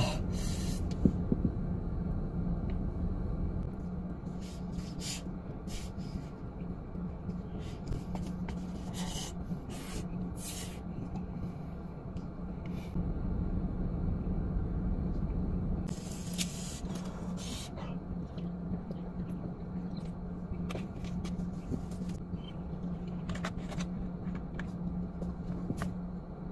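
Chopsticks scraping and clicking against an emptied paper instant-noodle cup, in short scattered clicks, over a steady low hum in a car cabin.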